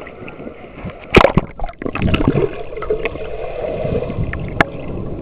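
Ocean surf sloshing and splashing around a swimmer, with a sharp loud splash about a second in and a smaller one near the end.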